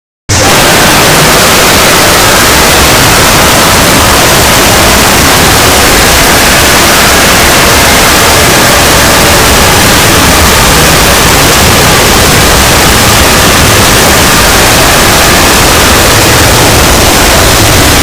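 Deliberately overamplified, heavily clipped 'earrape' audio: an extremely loud, distorted wall of static-like noise that cuts in abruptly just after the start and holds steady.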